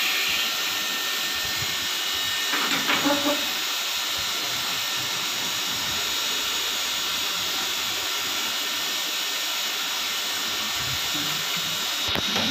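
Steady hissing background noise in a small workshop, with a brief louder sound about two and a half seconds in.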